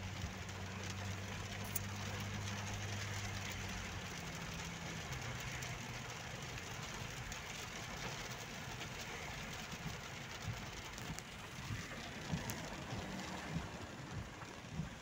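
Steady road noise inside a moving car on a wet road in the rain: tyre and engine noise, with a low engine hum that falls away after about four seconds. Light scattered ticks come near the end.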